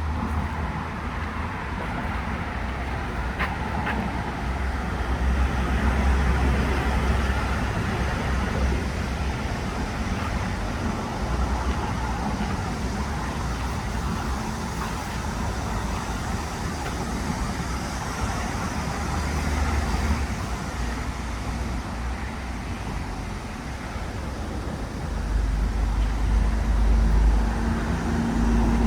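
Steady road traffic noise, a continuous hum of vehicles, with a deep rumble that swells for a few seconds near the end.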